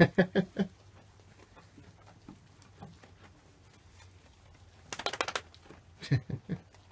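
Goats eating chaff hay from plastic buckets: faint ticking and rustling, a quick rattle of sharp clicks about five seconds in, then a few knocks just after.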